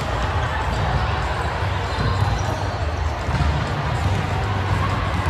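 Indoor volleyball being played: ball hits and thuds on the court, with faint voices behind.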